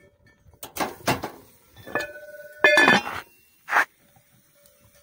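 Metal cookware and dishes clanking: a few knocks and scrapes, the loudest about three seconds in, ringing on briefly.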